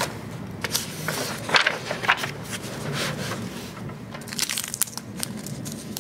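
Crinkling and crackling of a small see-through seed packet being handled: irregular rustling with a few sharper crackles.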